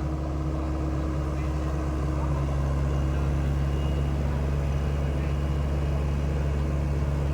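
SANY SY75C Pro mini excavator's diesel engine running steadily, a low even hum.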